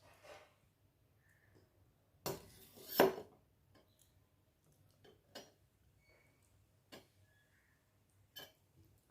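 Clinks and scrapes of tableware during a meal: a loud scrape and clatter about two to three seconds in, then three single light clicks spaced out over the rest.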